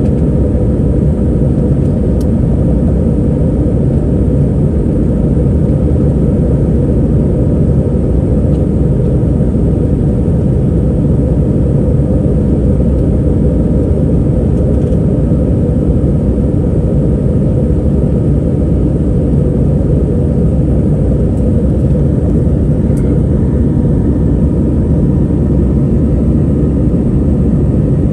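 Steady cabin noise inside an Airbus A321 climbing after takeoff: engine and airflow noise as a constant low drone, with a couple of faint ticks.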